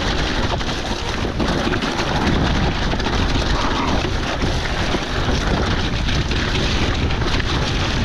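Electric mountain bike ridden down a wet trail: a steady rush of wind on the microphone, with tyre noise on wet dirt and a constant run of clicks and rattles from the bike over the bumps.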